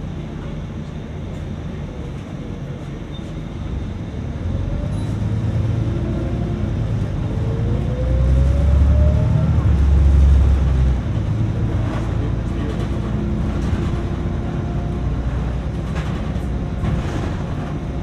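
EMT Valencia city bus in motion: a steady low rumble of engine and road that swells to its loudest about eight seconds in, with a faint rising whine along the way, then eases back.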